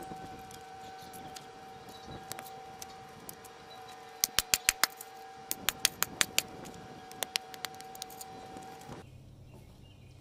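A shovel blade striking and packing the dirt of a bike jump's lip, in quick runs of sharp knocks: about five a little before the middle, five more just after, and two more later. This is the rider reshaping the deep tyre groove worn into the jump.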